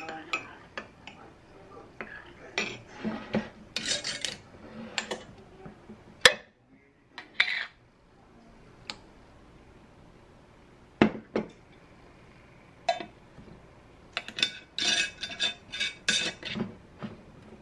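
A metal spoon stirring matcha in a ceramic mug, scraping and clinking against the sides in quick runs, with a few single sharp knocks between them.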